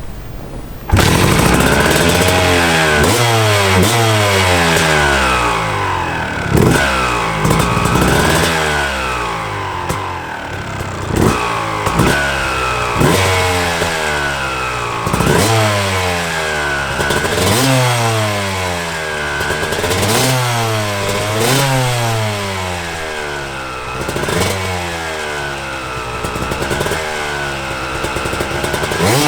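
2005 Yamaha YZ250 two-stroke dirt bike with an FMF pipe and silencer being ridden: it comes in suddenly about a second in, then revs up and drops back over and over, roughly every two seconds.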